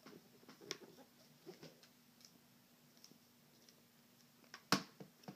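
Clarinet being assembled by hand: faint clicks and taps as the mouthpiece is fitted to the barrel, with one sharp click near the end.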